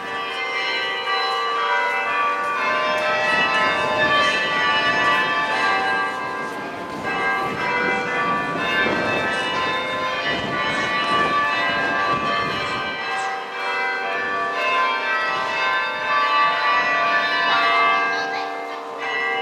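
Cathedral bells ringing, many bells sounding one after another with their tones overlapping.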